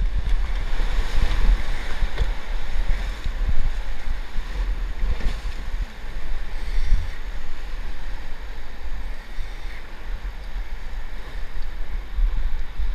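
Whitewater rushing and splashing around an inflatable oar raft as it runs a river rapid, with wind and spray buffeting the camera microphone and a deep rumble from the wind noise. The water is loudest near the start and eases as the raft moves into the choppy tail of the rapid.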